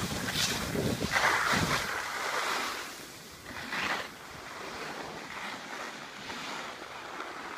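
Wind rushing over the microphone together with the scrape of skiing over packed snow. It is loud for the first two seconds, then drops to a fainter steady rush with one brief surge about four seconds in.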